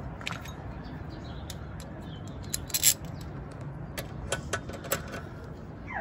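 Irregular sharp metallic clicks and clinks of a socket tool being handled and fitted onto a motorcycle's rear brake caliper bolt. The loudest comes about three seconds in, with a few more between four and five seconds.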